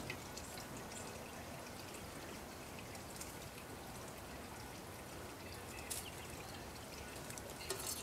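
Faint, steady outdoor background hiss with a few short, sharp clicks: one about three seconds in, one about six seconds in and the loudest just before the end.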